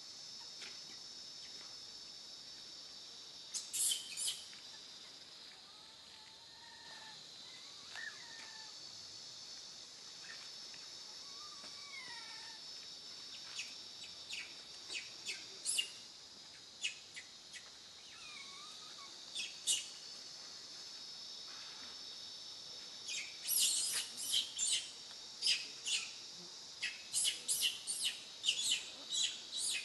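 Steady, high-pitched insect drone with short, shrill chirping calls over it. The chirps come scattered at first and crowd together in a quick run in the last several seconds.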